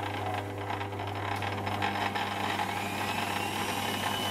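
HBM 250x550 Profi Vario metal lathe running at low spindle speed with a steady hum and a few light clicks. From about halfway its motor whine rises in pitch as the variable-speed dial is turned up, levelling off near the end.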